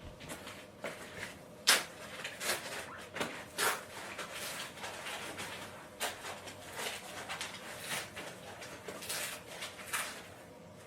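Rustling and clicking from plastic parts and packing being handled during assembly, at irregular times, with one sharp snap just under two seconds in.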